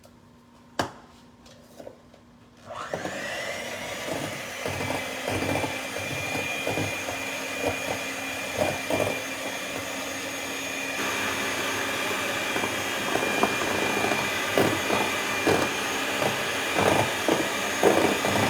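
Electric mixer switching on about three seconds in and running steadily with a high whine, whipping cream with powdered sugar; the beaters knock against the bowl again and again, and the sound gets a little louder about eleven seconds in.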